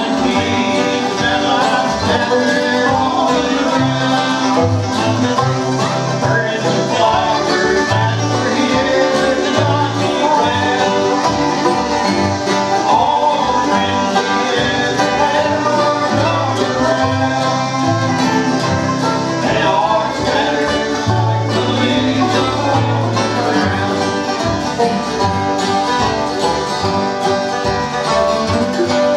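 Live bluegrass band playing, with acoustic guitars, banjo, mandolin and fiddle.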